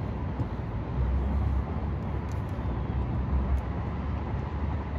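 Uneven low rumble of wind buffeting the microphone in the open air over a lake, swelling and easing in gusts, with a few faint clicks.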